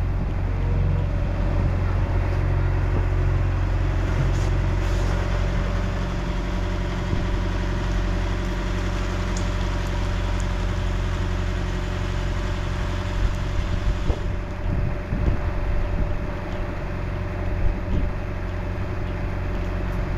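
Sailboat's engine running steadily at low speed, with a constant drone and hum. From about two-thirds of the way in, gusts of wind buffet the microphone.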